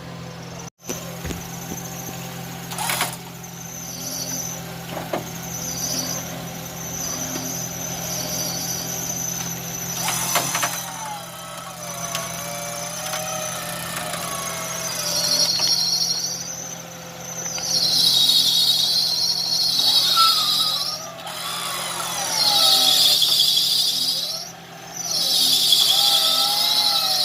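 Off-road 4x4 engine running steadily at idle. From about halfway, a loud high-pitched shrill comes in bursts of two or three seconds with short gaps between them.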